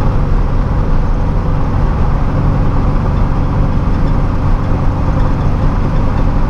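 Turbocharged 1700 cc air-cooled VW Beetle flat-four running at a steady highway cruise, heard from inside the cabin along with tyre and road noise. The engine note holds steady, with no revving or gear change.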